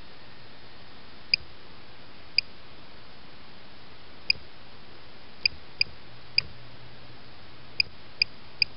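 Short, high electronic beeps at irregular intervals, about ten of them, from the KK2 flight controller's buzzer as its buttons are pressed to change settings, over a steady hiss.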